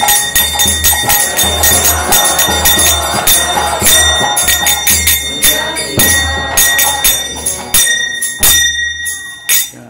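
Kirtan music: karatalas (small brass hand cymbals) struck in a fast, steady rhythm over mridanga drum beats, which stop near the end.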